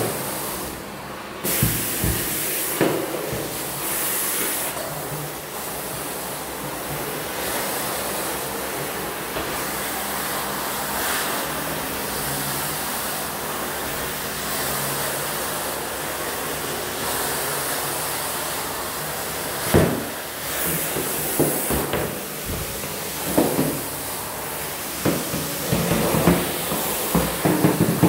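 Hard-surface tile-cleaning extraction wand spraying water onto tile and grout while vacuuming it back up: a steady hiss of spray and suction. Several short knocks, mostly in the last ten seconds, as the metal wand head works over the floor.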